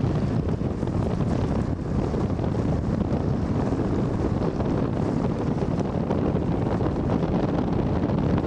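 Steady wind buffeting the microphone, a low, even rumble with no separate events.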